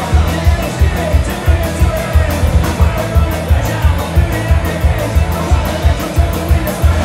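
Folk-punk band playing live: a fast, steady drum beat driving acoustic guitar, bass guitar and fiddle in an instrumental passage, heard from within the crowd.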